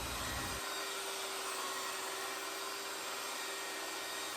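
Electric motor running steadily with an even airy hiss and a faint steady hum.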